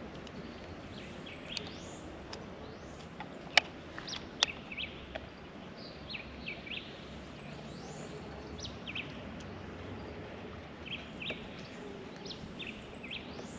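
Birds chirping, with many short high calls that sweep downward, over a steady outdoor hiss. Two sharp clicks a little under a second apart, about three and a half seconds in, are the loudest sounds.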